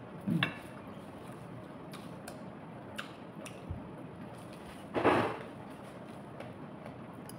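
A person eating roast chicken with their hands, chewing quietly. There is a short hum at the start, a few faint mouth clicks, and a brief breathy noise about five seconds in.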